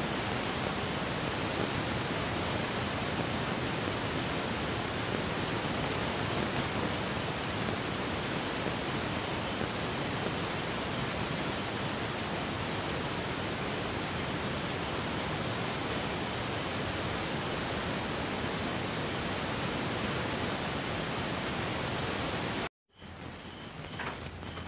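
Hot oil sizzling steadily as rice-flour and potato patties shallow-fry in a cast-iron pan. Near the end the sound cuts out briefly and comes back quieter, with fewer patties left in the oil.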